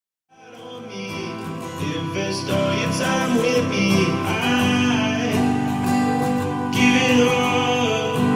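Background music: a guitar-led song fading in from silence just after the start.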